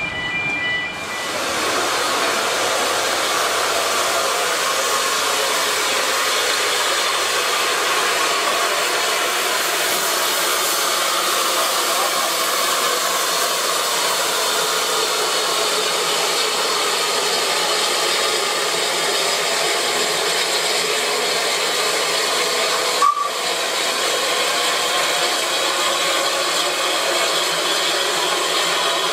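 Narrow-gauge steam tank locomotive letting off steam: a loud, steady hiss that runs on unbroken, with one brief click near the end.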